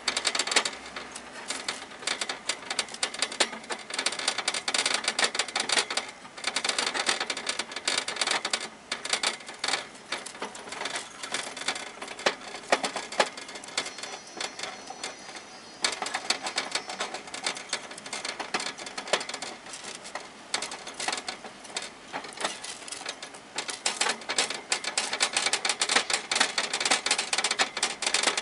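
Hamster gnawing on the metal bars of its wire cage: rapid clicking and rattling of teeth on metal, coming in bouts of a few seconds with quieter gaps between.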